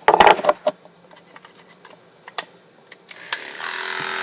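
Sharp plastic-and-metal clicks of a clipper blade being handled and snapped on, then, about three seconds in, an electric grooming clipper switched on and running with a steady hum through a freshly oiled blade.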